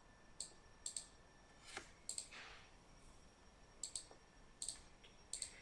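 Faint computer mouse clicks: about seven single, sharp clicks at uneven intervals.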